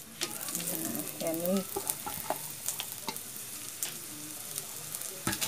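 Sliced onions sizzling in hot oil in a clay pot, a steady frying hiss with a few light clicks.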